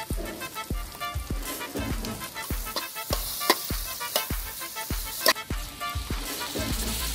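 Diced vegetables and sausage sizzling in an aluminium wok while a metal spatula stirs and scrapes against the pan, with a few sharp clanks. About six seconds in, liquid is poured into the wok and the sizzle grows to a steadier hiss.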